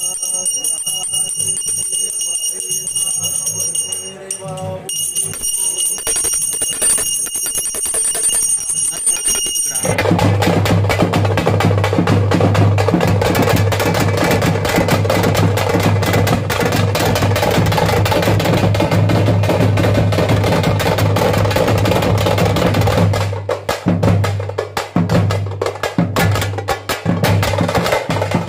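A puja hand bell rings steadily for about ten seconds, with a short break partway. Then a group of parai frame drums struck with sticks starts up, a fast, dense beat that thins to separate strokes for a few seconds near the end before picking up again.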